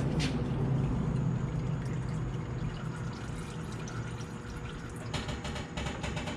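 Engine oil pouring from the Volkswagen Golf's oil-pan drain hole into a drain pan, a steady liquid stream. A low hum fades out in the first two seconds, and a rapid patter sets in about five seconds in.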